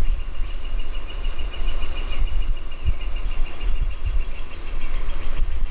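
Wind rumbling and buffeting on the microphone. A long, rapid, high-pitched songbird trill holds one pitch over it for about five seconds.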